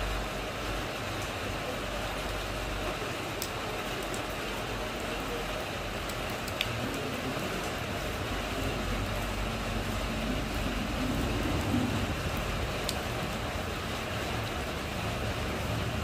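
Steady rain falling onto wet ground and into a puddle, with a few sharper drip clicks and a low rumble underneath.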